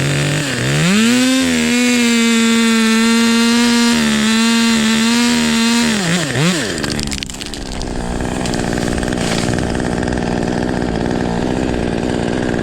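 Two-stroke chainsaw revved to full throttle: its pitch climbs quickly, holds high and steady for about five seconds, then falls away with a brief wobble. A steady engine drone continues after it.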